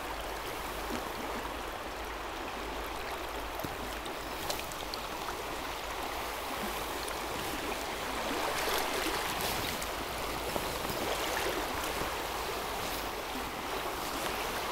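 Shallow freestone river running over stones in a riffle: a steady rush of water, swelling slightly about two-thirds of the way through.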